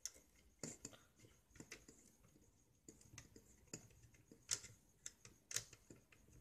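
Small screwdriver working a screw inside the base of a compact fluorescent bulb: faint, irregular clicks and scrapes, the two loudest about four and a half and five and a half seconds in.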